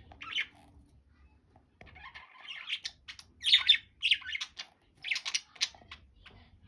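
Budgerigars chirping and squawking in short, rapid calls; a brief burst, a lull of about a second, then a busy run of chatter.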